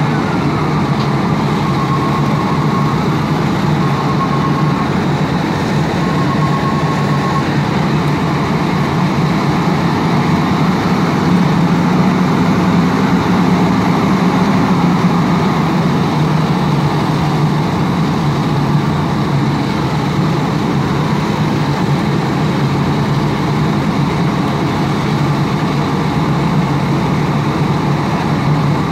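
A fire truck's engine running steadily. Three short electronic beeps come a few seconds in.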